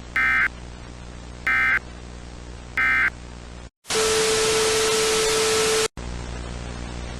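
Three short data bursts of an Emergency Alert System end-of-message signal, about a second and a half apart. After a brief dropout comes about two seconds of loud static with a steady tone, which cuts off suddenly to a low hum and hiss.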